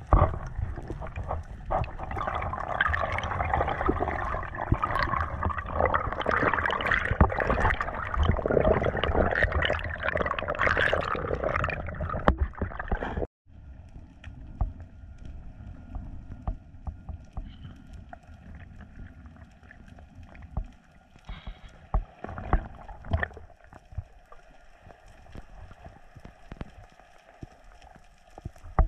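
Underwater camera audio: muffled rushing and crackling of water around the camera as the spearfisher swims, dense with small clicks and gurgles. It cuts off abruptly about 13 seconds in and returns quieter, with scattered clicks.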